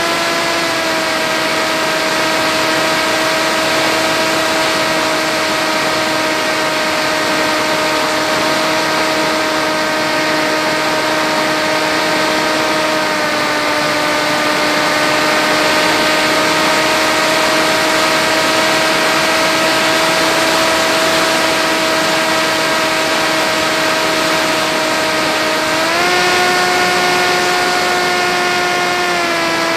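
Electric motor and pusher propeller of an FX-61 flying wing, recorded by the onboard camera in flight: a steady whine with a rush of wind noise. The pitch eases down slightly twice, jumps up about 26 seconds in as the throttle is raised, and drops back near the end.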